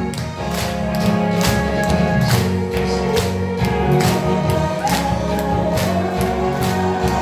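Instrumental break of a Korean trot song's backing track: a steady beat about twice a second under bass and a held melody line, with no singing.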